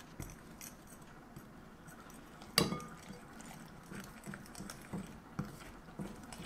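Quiet handling of kitchen glassware and a utensil over a glass mixing bowl of dry batter flour, with one sharp clink against the glass about two and a half seconds in and a few light taps near the end.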